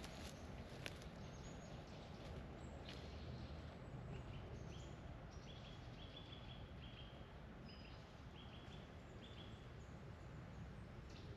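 Footsteps crunching on dry leaf litter in the first second, growing fainter as the walker moves off. Then a bird gives a series of short, even, high notes in the middle, over a quiet, steady low rumble.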